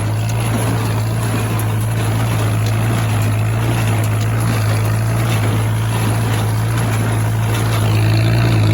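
Farmall H tractor's four-cylinder engine running at a steady speed while pulling an IH 430 small square baler, with a constant low hum and a broad mechanical noise over it.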